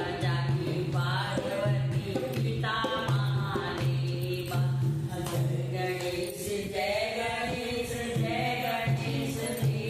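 Two women singing a devotional Ganesh bhajan together, accompanied by a dholak barrel drum played in a steady rhythm, with hand claps.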